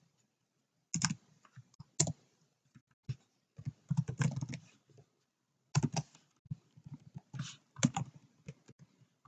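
Typing on a computer keyboard: irregular keystrokes in short runs with pauses between, with a quicker flurry of keys about four seconds in.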